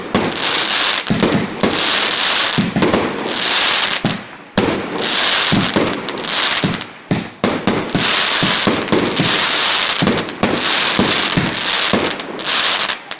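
Fireworks going off in a dense run of bangs and pops. Bursts of crackling come every second or two, with a brief lull about four seconds in.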